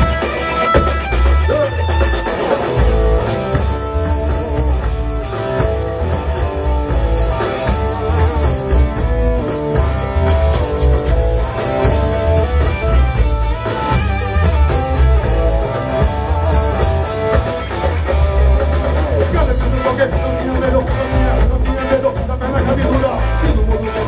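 A live rock band playing loud through an outdoor PA: electric guitar and drums over a heavy, booming bass.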